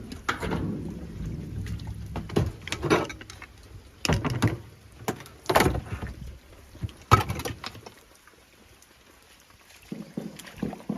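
Irregular knocks, clatter and splashing of objects being handled in water. The knocks are dense for the first several seconds, then thin out to a few small ones near the end.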